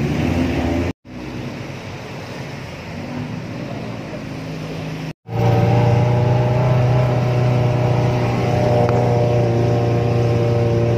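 A small off-road jeep's engine running steadily while driving, heard from aboard the open vehicle. The sound drops out twice, briefly, about 1 and 5 seconds in; after the second dropout the engine drone is louder and steadier.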